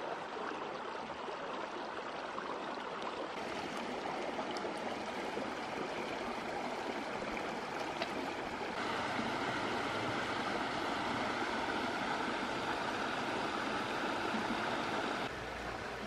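Water of a shallow rocky stream rushing and gurgling over stones, a steady sound that shifts abruptly in tone and loudness a few times, louder and brighter for a stretch in the second half.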